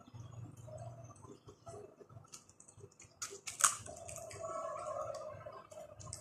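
Close-up eating sounds: chewing with mouth and lip noises, and small clicks and taps as fingers pull fried chicken apart on a plate, with one sharper tap about three and a half seconds in.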